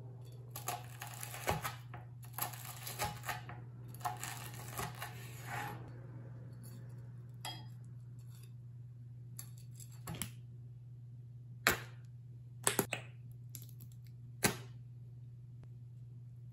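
Chef's knife cutting through a crisp breadcrumb-coated fried pork cutlet: a dense crunching crackle of the crust for several seconds, followed by a handful of separate sharp clicks and knocks. A steady low hum underlies it.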